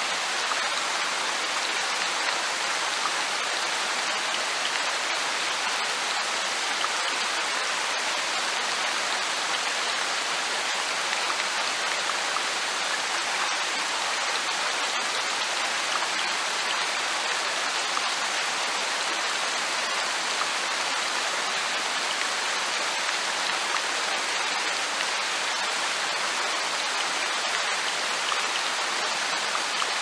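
Light rain falling, a steady even hiss of drops that does not change.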